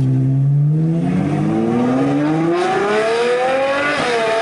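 Ferrari 812 Superfast's 6.5-litre V12 with Novitec straight-piped exhaust accelerating hard, its pitch climbing steadily through the revs. About four seconds in comes a quick upshift, and the revs start climbing again.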